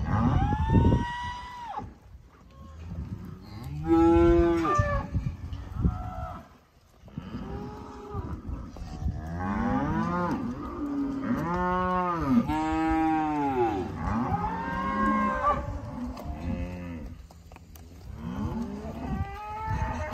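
Santa Gertrudis-cross calves bawling, one call after another: single calls about a second in and around four seconds in, then several calves calling over each other for several seconds in the middle, and another call near the end.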